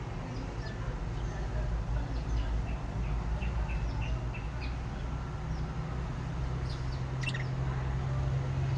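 Lovebirds chirping: short high chirps scattered throughout, with a sharper falling call about seven seconds in, over a steady low rumble.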